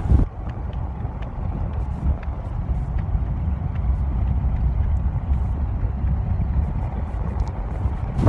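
Steady low rumble of a truck driving along, heard from inside the cab, with wind rushing in through an open window.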